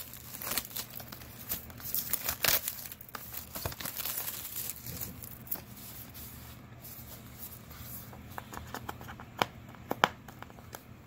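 Unboxing a battery: plastic wrapping crinkling and tearing and a cardboard box being handled, in scattered short rustles, with two sharp taps near the end.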